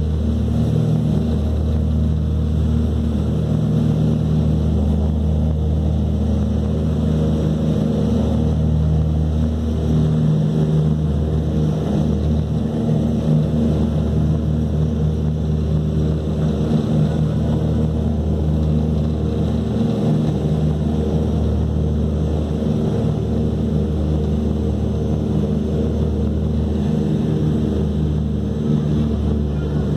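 Douglas DC-3's twin radial piston engines and propellers running steadily at high power through the takeoff roll and climb-out, heard from inside the cabin as a loud, even drone.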